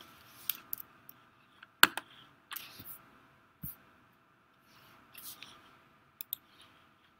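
Scattered clicks and taps on a computer while it is being operated, with one sharp, loud click a little under two seconds in and a quick pair of clicks near the end, over a faint steady hum.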